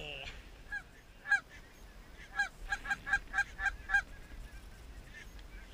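Goose honking: a few single short honks, then a quick run of about seven clipped honks, about five a second, ending around four seconds in.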